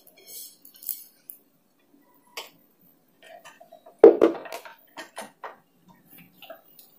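Sparse light clicks and taps of kitchen utensils being handled around a non-stick tawa freshly brushed with ghee, with one louder thump about four seconds in.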